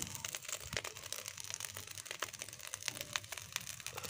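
Leftover rice frying in a karahi, crackling and sizzling with quick, irregular pops. The rice is fried through and close to being taken off the heat.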